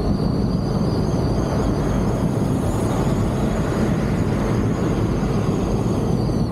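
Steady wind and road rumble picked up by a vehicle-mounted camera on a moving off-road vehicle, with a faint steady high whine on top.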